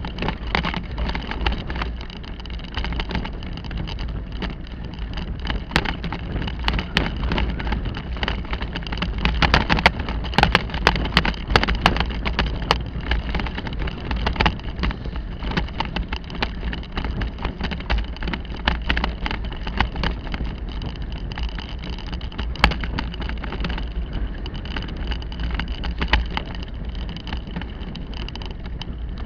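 Bicycle ridden over a bumpy dirt singletrack: a steady low rumble of tyres and wind on the microphone, with the bike rattling and knocking over the bumps, in a quick run of knocks about ten seconds in.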